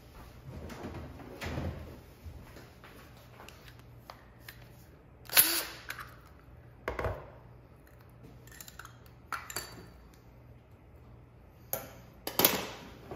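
A Klein Tools hole saw and arbor being handled and taken off a cordless drill on a tabletop: a few separate sharp clicks and metallic clinks, the loudest about five and a half seconds in and another near the end.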